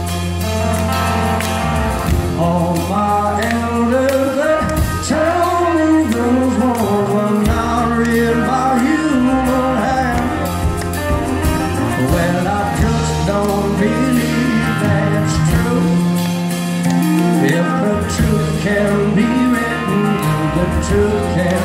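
Live band music: a man singing while playing an acoustic guitar, over a steady low bass.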